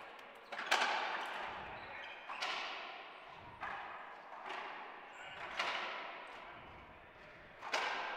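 Racquetball doubles rally: the ball is struck by racquets and cracks off the court walls in a series of sharp smacks a second or two apart. Each smack rings on in the hard-walled court's echo.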